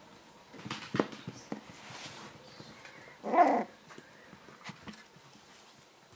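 A Border Terrier puppy gives one short bark about halfway through, the loudest sound here. Earlier there is a sharp knock, and light clicks and taps of paws run throughout.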